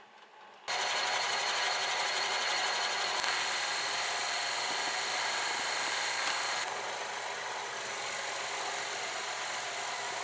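Metal lathe running with a boring bar cutting inside the bore of a metal block spun in a four-jaw chuck: a steady machining whir that starts suddenly about a second in and cuts off suddenly near the end.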